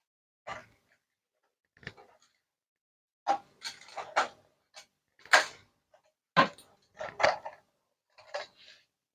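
Ring light being tightened onto its tripod mount: an irregular series of sharp clicks and knocks, about a dozen, from the parts being turned and handled.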